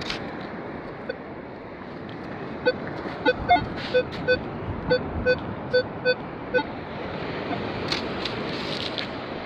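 Minelab Equinox metal detector sounding on a target: a run of about a dozen short, low beeps, roughly three a second, as the coil is swept back and forth over a spot in the sand. A steady hiss sits underneath.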